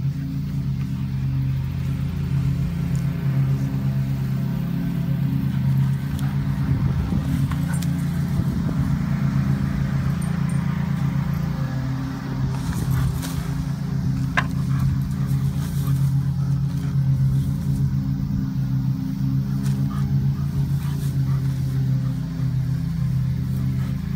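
A lawn mower engine running at a steady pitch, a constant drone.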